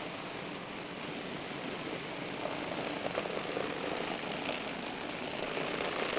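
Train running past: a steady rushing noise that slowly grows louder, with short squeals and a few sharp clicks from about halfway through.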